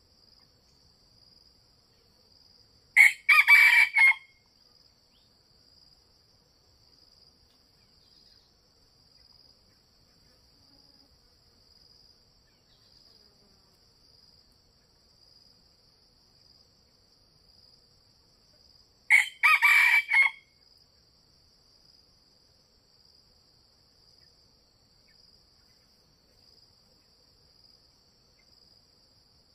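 Red junglefowl rooster crowing twice, each short, clipped crow lasting just over a second, about sixteen seconds apart. Between them a faint, high insect trill pulses about once a second.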